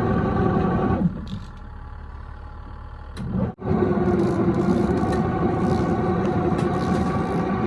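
Wonder Washer portable electric washing machine running its wash cycle: a steady motor-and-agitator hum. It drops quieter for about two seconds a second in, then comes back at full level.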